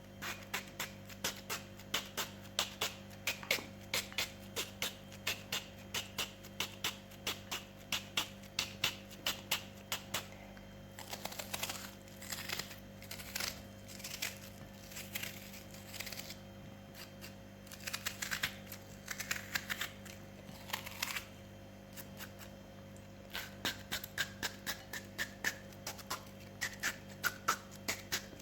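Kitchen knife finely chopping a red onion on a cutting board by hand: quick, even knocks of the blade, about three a second, with a few short breaks.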